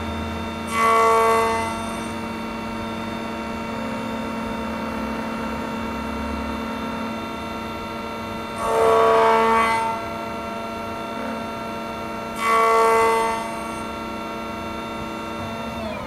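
Beta automatic key cutting machine running with a steady motor hum while its cutter works an FO21 Tibbe key blank, with three louder pitched bursts of about a second each, about a second in, near the middle and a few seconds later.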